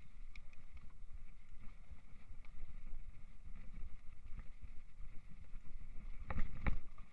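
Mountain bike ridden fast over a dirt trail: a steady low rumble of tyres on the ground and wind on the microphone, with two loud knocks close together about six seconds in as the bike jolts over rough ground.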